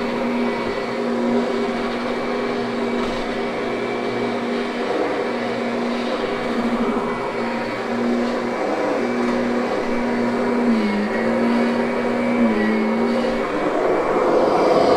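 Kirby upright vacuum running steadily over carpet, its motor giving a steady hum whose pitch dips briefly twice as it is pushed under load, growing louder near the end.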